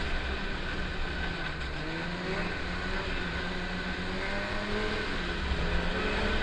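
Snowmobile engine running under way on a trail, its note rising and easing slightly, with wind rumbling on the microphone.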